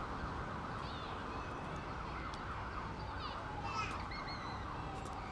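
Outdoor ambience: a steady background rush with scattered short, high chirps and whistled sweeps, a few at a time, about a second in and again around three to four seconds in.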